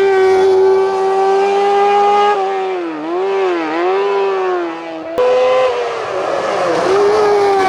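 Race car engine at high revs, flat out on a hillclimb. Its note is held steady for a couple of seconds, then drops and climbs back twice as the driver lifts and changes gear, and dips and rises once more near the end.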